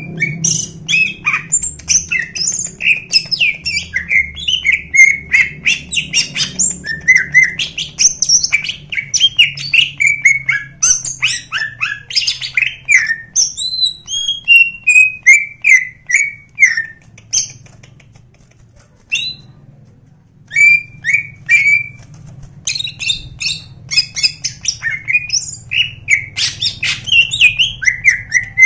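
Caged male green leafbird (cucak ijo) singing a fast, varied chattering song of quick sliding notes. It breaks off for a few seconds about two-thirds of the way through, then resumes.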